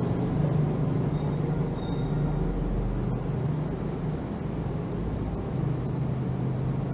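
Steady low hum of street traffic, motor vehicle engines running with no single vehicle standing out.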